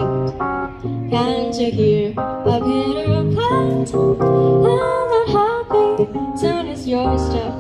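Live duo music: a woman singing a slow melody over an accompaniment played on a Yamaha electronic keyboard, in a light jazz style.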